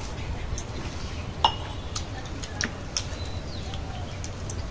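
Scattered light clinks and taps of stainless-steel plates and bowls during a meal, the sharpest about one and a half seconds in, over a steady low rumble.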